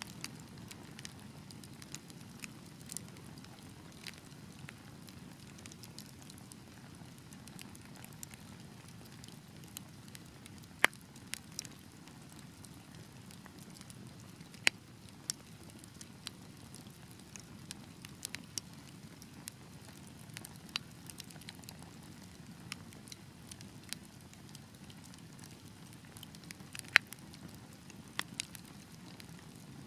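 Fireplace fire crackling: a steady low rush of flames with frequent small snaps and a few louder pops, the sharpest near the middle and near the end.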